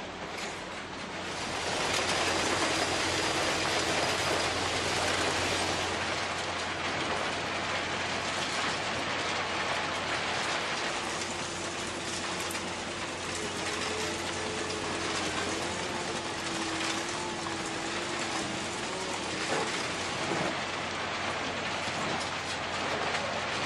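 Plasser & Theurer BDS 2000 E³ ballast machine working on the track: a steady machine noise with a rain-like hiss of ballast stones, getting louder about two seconds in. A faint whine comes and goes over it.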